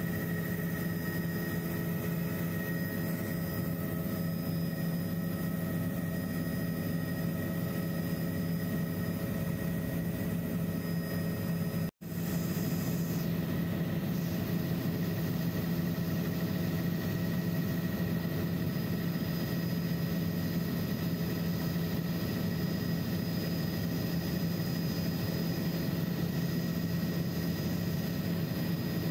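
Helicopter rotor and engine noise heard inside the cabin in flight: a steady, loud drone with a low hum and several fixed whining tones above it. The sound cuts out for an instant about twelve seconds in, then carries on unchanged.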